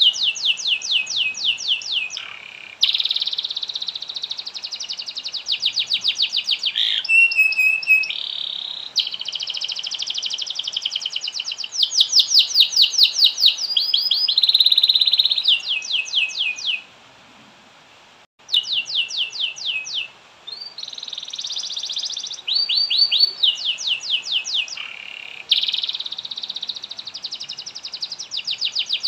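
Domestic canary singing a long song of fast trills and rolling buzzy phrases, one after another, with a pause of about two seconds around the middle.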